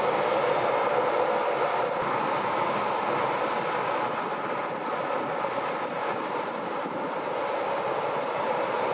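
Steady jet engine noise from a British Airways Boeing 747-400's four Rolls-Royce RB211 engines as it moves along the runway, dipping slightly midway and rising again near the end.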